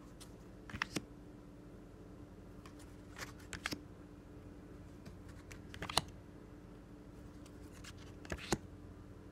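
Stiff palm reading cards being handled one at a time as the deck is flipped through: four short clusters of clicks and slides, about every two and a half seconds, over a faint steady hum.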